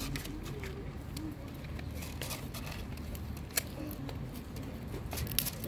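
Cats eating dry kibble: irregular small crunches and clicks, with a sharper crack about three and a half seconds in and a cluster near the end.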